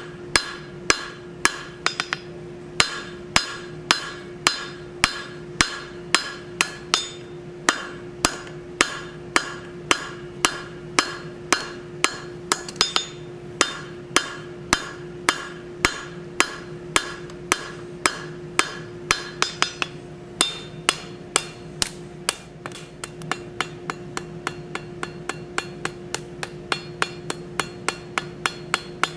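Hammer blows on a hot steel bar over an anvil, struck in a steady rhythm of about two a second, drawing the bar out between two shouldered points. A steady ringing hum sits under the strikes.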